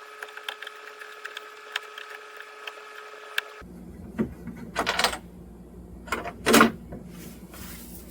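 A screwdriver working a stubborn screw out of a CRT TV's plastic back casing. For the first few seconds there are rapid small clicks over a faint steady whine, then scattered scraping and a few knocks on the plastic.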